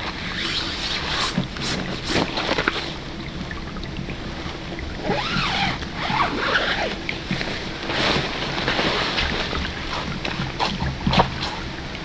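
River water sloshing and splashing, with scattered sharp knocks.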